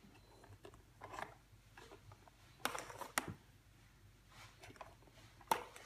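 A few faint clicks and knocks, four spread over several seconds with the loudest near the end, from a baby handling a plastic toy gumball machine.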